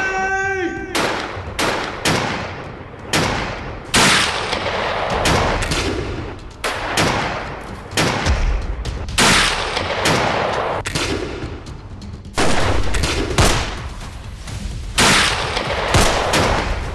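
Rifle gunfire: a long string of single shots at uneven spacing, roughly one every half second to a second, each followed by an echoing tail.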